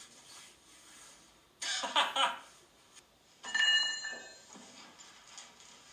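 A rough, noisy burst lasting under a second, then a sharp metallic strike about three and a half seconds in that rings on in several high tones and fades within a second.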